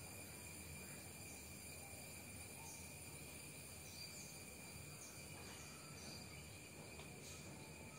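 Faint outdoor background: a steady insect trill of crickets, with a few faint, short, high chirps scattered through it.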